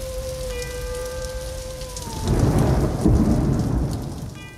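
Thunderstorm sound effect: steady rain with a long held tone that slides down and stops about two seconds in, then a loud rolling peal of thunder that fades away near the end.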